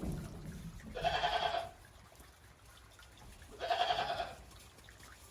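Goats bleating: two wavering calls, each under a second long, about a second in and again near four seconds in.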